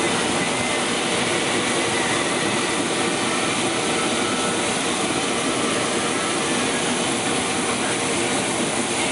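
Combine harvester running steadily while harvesting corn and unloading grain through its auger, heard from inside the cab: a dense, even machine noise with a faint steady hum.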